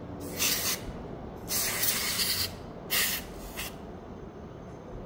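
Aerosol spray can hissing in four short bursts, the second about a second long: spraying the motorcycle's handlebar switch assembly and throttle cables to clean and lubricate them.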